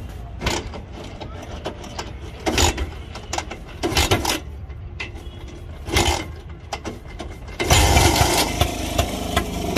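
Rajdoot GTS 175's single-cylinder two-stroke engine being kick-started: several kicks, each a short burst. About three-quarters of the way in it catches and runs with a fast, rattly two-stroke beat.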